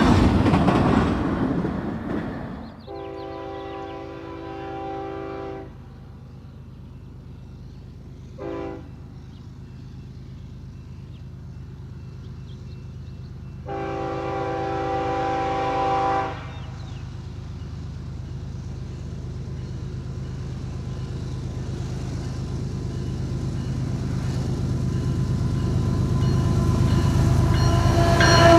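Locomotive air horn blowing a long blast, a short one and another long blast, as in a grade-crossing signal. A train rumble grows steadily louder as the train approaches, after an earlier loud train sound fades out in the first couple of seconds.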